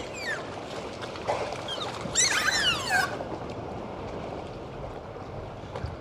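Dolphins whistling underwater: a burst of several overlapping whistles sweeping up and down about two seconds in, with a few short chirps and clicks, over a steady underwater wash.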